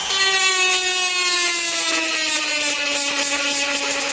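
GOXAWEE handheld electric rotary tool running at its lowest speed setting, its bit boring into a TPU plastic bottle. The motor gives a steady high whine that sinks slowly in pitch as the bit works into the plastic.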